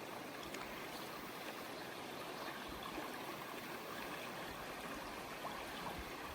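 Steady rush of river water flowing over stones, the river running slightly high.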